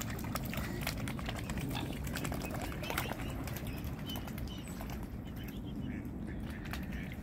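Steady wind rumble on the microphone, with scattered light clicks and small water splashes from swans and cygnets dabbling at the surface, thinning out after about three seconds. A couple of faint short high chirps near the middle.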